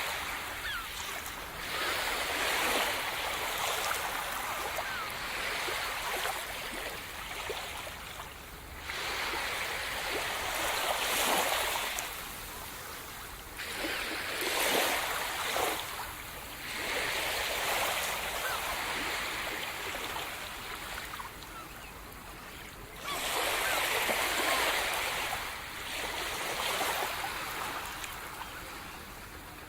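Sea surf: waves breaking and washing up one after another, the hiss swelling and fading every few seconds.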